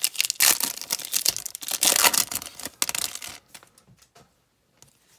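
Plastic wrapper of a baseball card pack crinkling and tearing open, with the cards rustling in the hand. The rustling stops about three and a half seconds in, leaving a few faint clicks.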